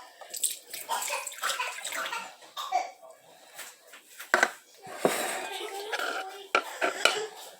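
Milk being poured from a carton into measuring cups, a gurgling stream of liquid, with a few sharp knocks of the cups and carton.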